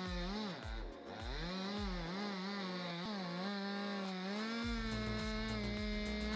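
Two-stroke chainsaw running at high revs while cutting wood, its pitch dipping and recovering as the chain takes load, then holding steady a little past halfway through. A low rumble joins in at about the same point.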